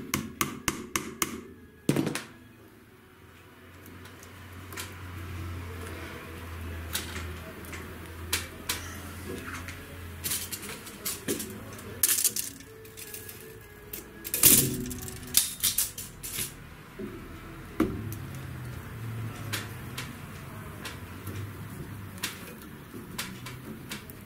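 Upholstery work on a wooden chair frame: a quick run of light taps, a single loud knock about two seconds in, then scattered clicks and knocks of tools and twine being handled.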